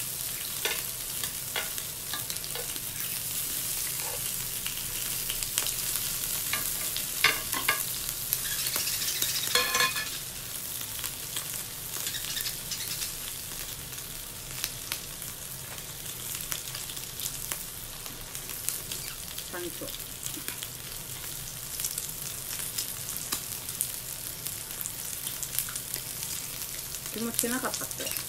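Slices of meat sizzling on a tabletop grill plate: a steady high hiss with scattered crackles and pops, easing off a little about ten seconds in.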